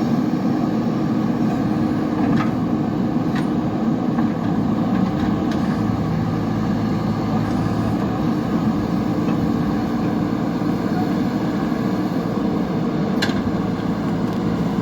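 JCB backhoe loader's diesel engine running steadily, with a few light clicks about two, three and thirteen seconds in.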